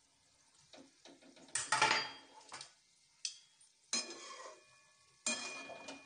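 A metal slotted spoon knocking and scraping against an aluminium kadai as it turns pantua frying in oil. There are a few separate strokes, the loudest about two seconds in, and the pan rings briefly after the last two. The oil sizzles faintly between the strokes.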